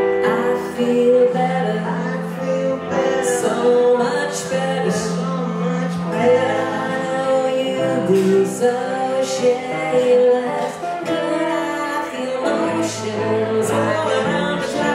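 Live band music: an electric archtop guitar and an electric keyboard playing a blues song, with a woman singing long held notes over a steady bass line.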